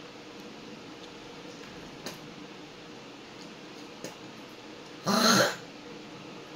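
A woman spitting at a small hand mirror held close to her mouth: a few faint clicks, then one loud, throaty spit about five seconds in, lasting about half a second.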